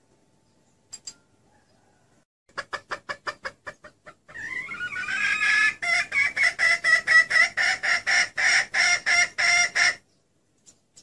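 Red junglefowl hen clucking: a couple of faint clucks, then a quick run of clucks that breaks into a long, fast series of cackling notes at about five a second and cuts off suddenly near the end. This is the hen call used to lure junglefowl cocks.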